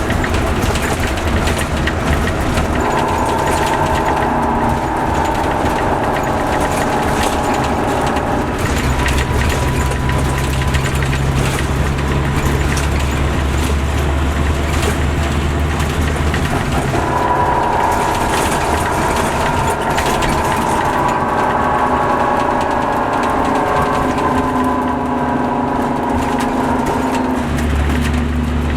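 Caterpillar C13 diesel engine of an MCI D4500CL coach running, its note shifting a few times. A higher whine comes in twice, for several seconds each time.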